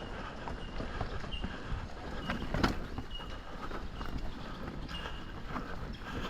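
Electric mountain bike being ridden over rough trail: tyres on dirt and rocks with a steady run of knocks and rattles, and one louder thud a little before the middle.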